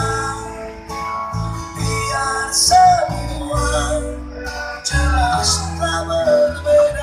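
Instrumental music with no singing: guitar over a pulsing bass, and a melody line that slides between notes.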